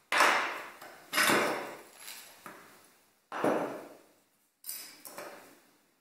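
Knocks and clatters of a 1960s Leinbrock's Ideal coffee grinder being taken apart on a wooden workbench: metal parts and red plastic cup pieces handled and set down, about five separate knocks, each dying away quickly.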